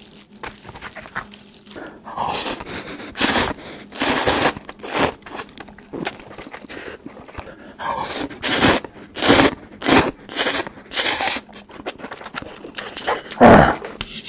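Close-up slurping of instant ramen noodles: a run of short, sharp slurps and sucking breaths with pauses between. A thump near the end.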